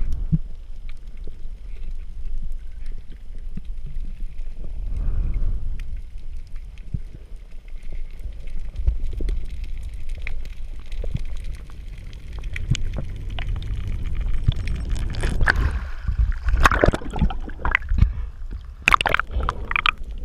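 Water moving around a GoPro camera on a breath-hold dive: a steady low rumble, with a cluster of louder splashy noises in the last few seconds.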